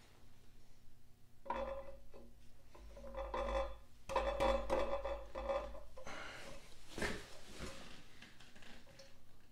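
Cast-iron crankshaft damper pulley worked by hand onto the crank snout of a Datsun L28 engine: metal rubbing and scraping with a pitched squeak, then a single sharp knock about seven seconds in.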